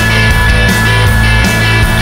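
Rock music with a steady drum beat and shifting bass notes, loud and dense.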